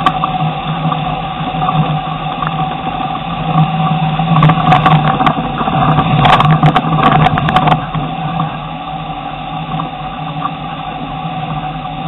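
Jeep engine running steadily under load while crawling up a rocky ledge. A burst of knocks and clatter comes from about four and a half to eight seconds in, as the nose pitches up over the rocks, and the sound is loudest then.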